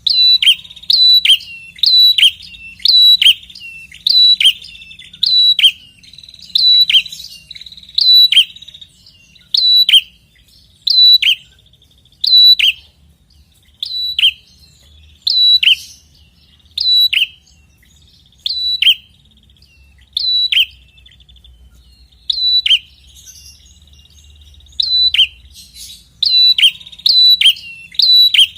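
Red-headed prenjak singing a loud, insistent song: one sharp two-part phrase repeated about once a second, a high note dropping into a quick downward sweep, with a couple of short pauses near the end.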